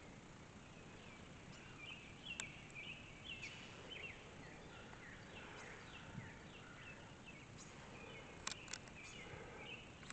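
Faint chirping of several small birds, many short quick calls one after another, with a few sharp clicks, two of them about two and a half seconds and eight and a half seconds in.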